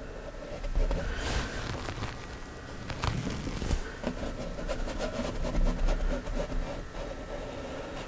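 Stiff bristle brush scrubbing and dabbing oil paint onto a canvas: a rough brushing noise with many light taps.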